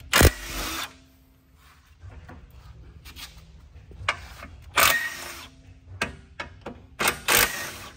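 Cordless power tool run in three short bursts of about half a second each, backing out the bolts that hold a truck's AC condenser in place, with light knocks of metal parts between bursts.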